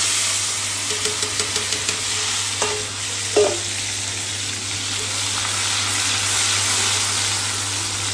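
Spice paste of chilli and coriander seeds frying in hot oil in a stainless steel wok: a loud, steady sizzle as it is stirred with a spoon, with a few brief knocks a little under three and a half seconds in.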